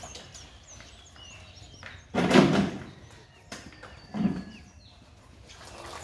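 Two heavy thuds, a longer one about two seconds in and a shorter one about four seconds in, while small birds chirp throughout.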